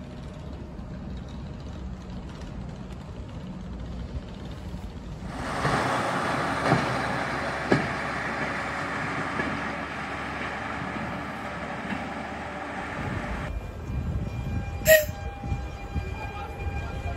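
Electric multiple-unit train standing at a station platform before pulling out. A rushing noise starts about five seconds in and cuts off about eight seconds later, with a couple of clicks in it. Then come steady whining tones and one sharp knock.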